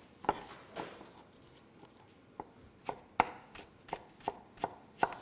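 Kitchen knife cutting a fresh Williams pear on a wooden cutting board: about ten sharp knocks of the blade against the board, spaced unevenly, coming faster in the second half.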